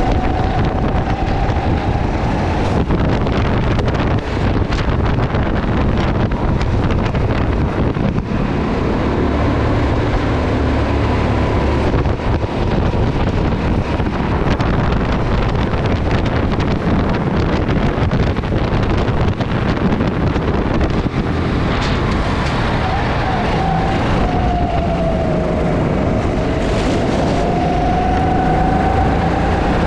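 Honda 270 cc single-cylinder four-stroke engine of a Sodi SR4 rental kart running hard at racing speed, with wind buffeting the microphone. Near the end its pitch falls and then climbs back as the kart slows and accelerates again.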